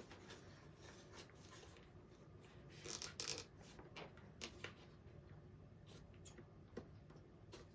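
Faint rustling and scattered light clicks of product packaging being handled and pulled open, a little louder about three seconds in.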